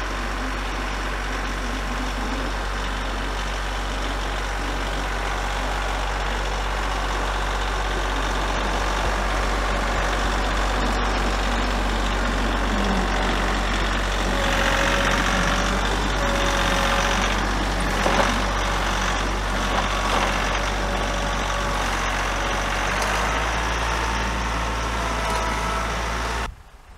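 Compact tractor with a front loader, its engine running steadily as it drives past, a little louder midway; the sound cuts off suddenly near the end.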